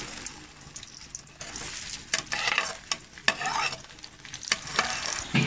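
Sliced onions sizzling as they are tipped into hot oil in a metal cooking pot, the hiss growing fuller about a second and a half in, with a few sharp knocks and scrapes as they are pushed off the plate.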